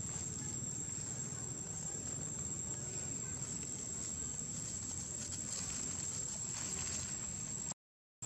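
Steady outdoor background noise with a constant high-pitched whine like insects and a low rumble, with a few faint rustles.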